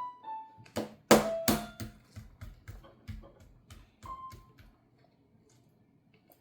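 A few notes of a melody, then a loud clatter of knocks about a second in, thinning into a string of lighter ticks that fade out by about five seconds in.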